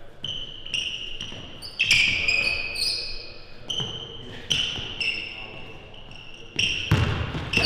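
Basketball shoes squeaking on a hardwood court in many short, high chirps, mixed with the thuds of a basketball being dribbled. The loudest squeaks and thuds come about two seconds in and again near the end.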